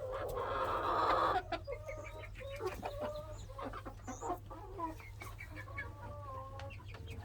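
A flock of young chickens of mixed ages clucking in short calls, with one loud, raspy call over the first second and a half.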